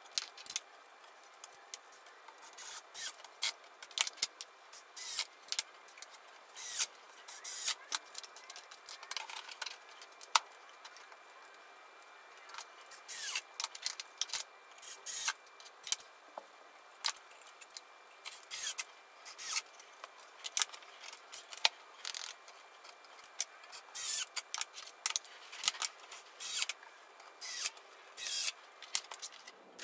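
Plywood boards being handled and fitted into a plywood frame: irregular knocks and clicks of wood on wood, with rubbing and scraping between them.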